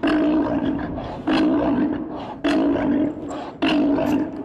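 Female South American sea lion roaring: four roars about one every second and a quarter, each loud at the start and trailing off.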